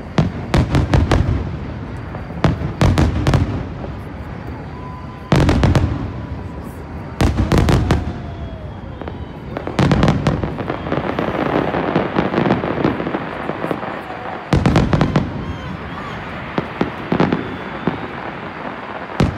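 Aerial fireworks display: shells bursting in quick clusters of sharp bangs every couple of seconds, with a stretch of dense crackling from about ten seconds in.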